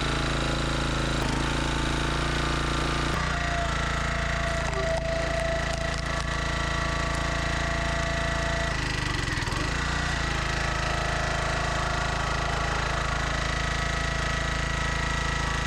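Small single-cylinder gasoline engine of a Huskee log splitter running steadily, with a brief change in its note about nine seconds in. After its tune-up it runs well.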